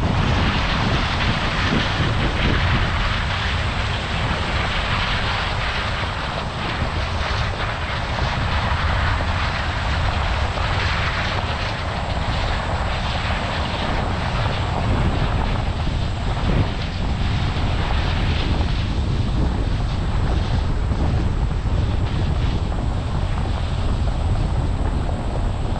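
Steady drone of large diesel harvest machinery running in the field.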